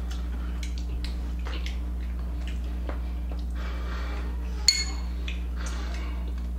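Small sounds of cutlery and dishes at a dining table over a steady low hum. About three quarters of the way through comes one sharp clink of metal on a dish that rings briefly.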